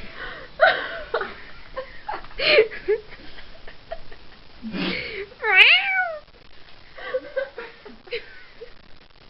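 Domestic cat meowing and yowling several times in protest at being dressed in a onesie. The loudest, longest call comes about five and a half seconds in and rises, then falls, in pitch.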